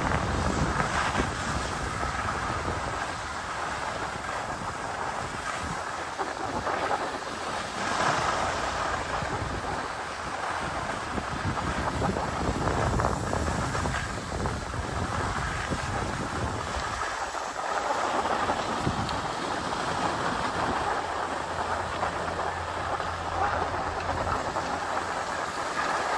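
Skis hissing and scraping over groomed, packed snow on a downhill run, with wind buffeting the microphone. The noise swells and eases every few seconds, as with turns.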